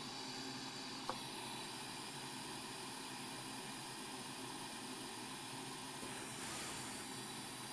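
Steady background hiss, with a single short click about a second in.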